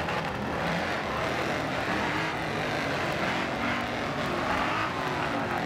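Ford Mustang GT's 5.0-litre V8 running steadily as the car rolls slowly past at low speed.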